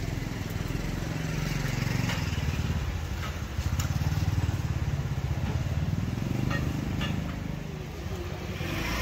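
An engine running steadily, its low drone swelling and fading in loudness every few seconds, with a few faint clicks.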